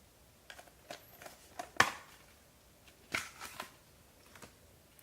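Steelbook disc case being handled and opened: a scatter of light clicks and taps, the sharpest a little under two seconds in and a small cluster about three seconds in.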